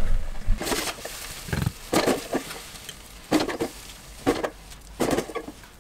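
Metal spoon scooping cooked rice out of a rice cooker's inner pot and onto a plate: a string of short, irregularly spaced scrapes and soft knocks.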